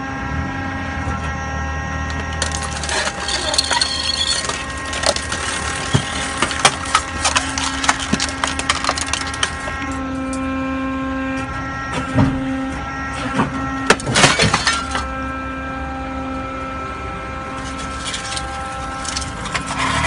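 Hydraulic scrap metal baler: the electric-motor hydraulic pump runs steadily with a humming whine. Scrap crackles and crunches as the compressed bale is pushed out of the chamber, and there are sharp metallic bangs around 12 and 14 seconds in.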